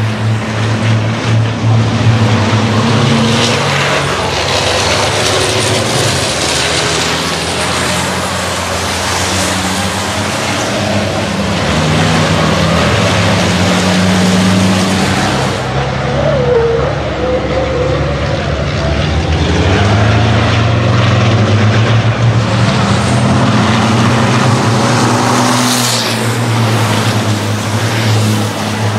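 Racing trucks' diesel engines running hard as they pass on a circuit, the engine note rising and falling with throttle and gear changes.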